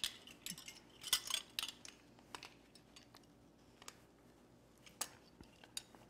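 Faint, scattered clicks and rustles of plastic measuring spoons, a small lidded salt container and a plastic bag being handled while someone tries to get the container open.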